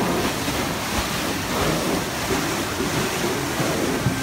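The Mark Twain Riverboat's stern paddlewheel churning the river, a steady rushing splash of water thrown off the turning paddles.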